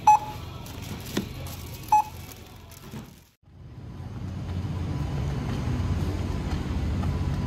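Two short beeps from a supermarket checkout barcode scanner, about two seconds apart, as items are scanned. After a brief silence, steady city street noise with a low traffic hum.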